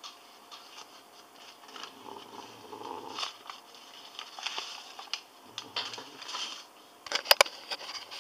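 Sleeping cat snoring loudly, a few slow, noisy breaths in and out. A cluster of sharp clicks sounds about seven seconds in.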